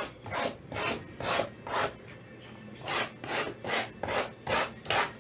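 Shrink-wrapped 2022 Topps Tier One baseball boxes being slid and shuffled against each other by hand: about ten quick rubbing scrapes, roughly two a second, with a short break a little after halfway.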